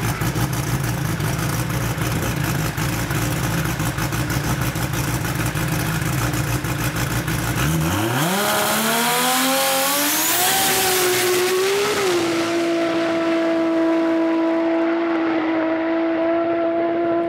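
Toyota 2JZ straight-six drag-race engine running loud and rough, then about eight seconds in the engine note climbs steeply for a few seconds, as at a launch under full throttle. It dips once slightly and holds a steady high note while the hiss above it fades away.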